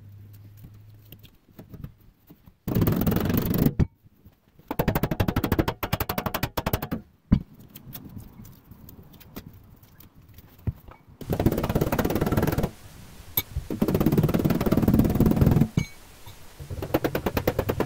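Runs of rapid, light metal-on-metal tapping on the thin aluminium door skin of a Land Rover 109 rear door, panel beating the edge of a cut-out round. The strikes come in several quick bursts of many blows each, with short pauses between.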